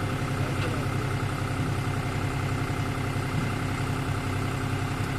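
A heavy diesel engine running steadily at idle, with an even low hum.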